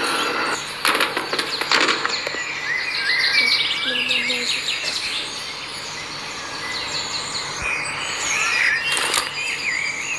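Birds chirping and trilling in short repeated calls, with two short sharp noises about a second apart near the start.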